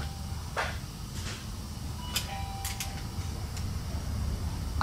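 A handful of short, light clicks and clinks as a motorcycle clutch hub is worked off its shaft and handled, over a steady low hum.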